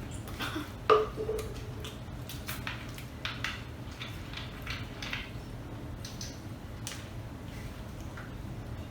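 Close-miked eating sounds: chewing, lip smacks and wet mouth clicks from people eating pizza, scattered irregularly, with a sharper click about a second in, over a steady low hum.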